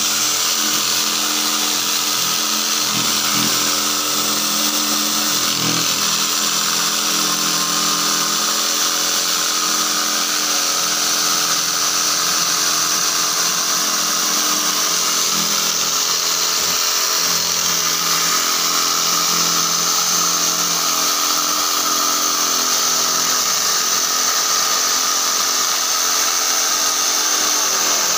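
Dongcheng corded electric jigsaw running steadily, its blade cutting a curve through a thick wooden panel without a pause.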